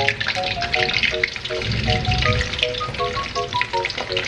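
Bananas deep-frying in hot oil in a wok, sizzling and crackling with many small pops, turned with a wooden spatula near the end. Background music of short plucked melody notes plays throughout.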